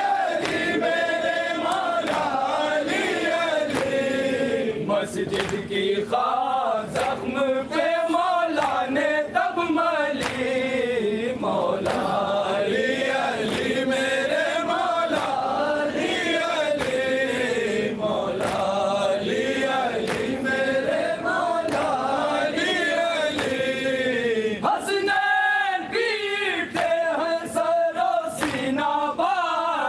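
A group of men chanting a noha, a sung Urdu lament for Imam Ali, in a continuous melodic line, with sharp percussive beats mixed in.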